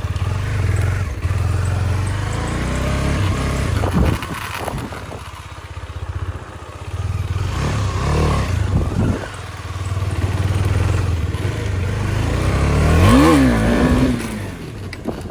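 Motorcycle engine revved in repeated swells, rising and falling in pitch, with one sharp blip of the throttle about thirteen seconds in.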